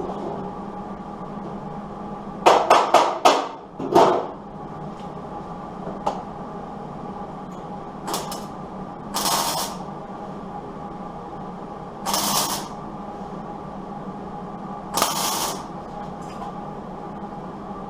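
Welder laying short tack welds on a truck door's sheet-metal skin: a quick run of four or five short bursts a couple of seconds in, then single half-second hissing bursts about every three seconds. A steady electrical hum runs underneath.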